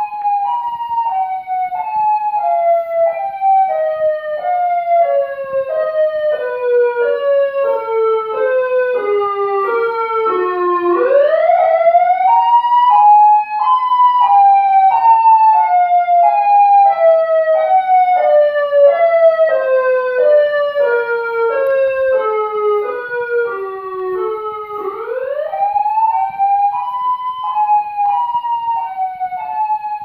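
SiraTone siren synthesizer's alternate wail, played through a home stereo at full volume: a siren tone that falls in short steps, about two a second, over about ten seconds, then sweeps quickly back up. The cycle repeats.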